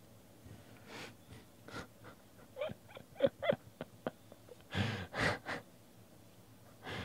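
Baseball cards being flipped through by hand, soft sliding and rustling of card stock, with a few short nasal breaths and murmured mouth sounds from the person handling them; the loudest of these come about three seconds in.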